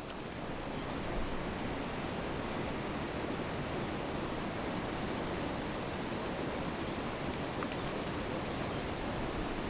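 Steady rushing outdoor background noise with faint high chirps now and then.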